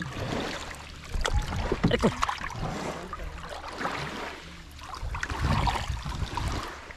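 Shallow seawater splashing and sloshing irregularly as a plastic basin holding freshly caught fish is dipped and swirled in it.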